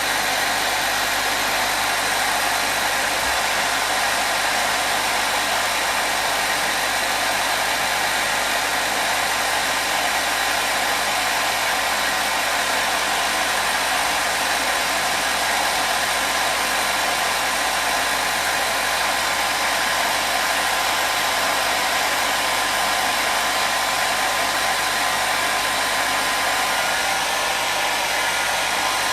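Hair dryer running steadily, a constant even whoosh of airflow with a faint motor hum, used as white noise.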